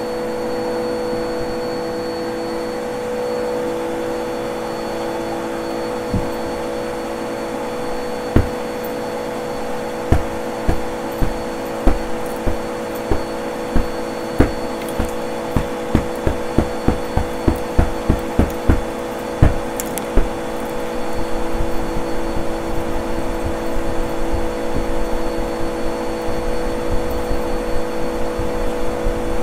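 Vacuum cleaner motor running with a steady hum. From about eight seconds in, a run of sharp knocks comes roughly one to two a second and stops at about twenty seconds. After that comes a rapid rustling scrape, fitting the shag rug being dragged over carpet strewn with bottle caps and crunchy debris.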